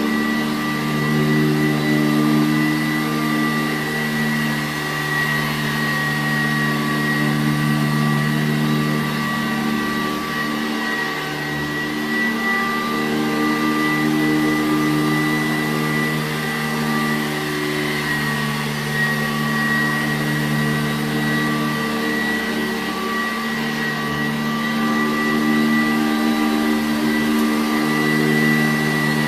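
Sanitaire SC887B-2 commercial upright vacuum cleaner running steadily, a high whine over the hum of its 7-amp motor.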